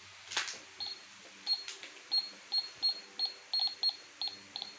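Toy cash register beeping: about a dozen short, high electronic beeps at irregular intervals, some in quick pairs, as its keys are pressed. There is a brief plastic scrape about a third of a second in.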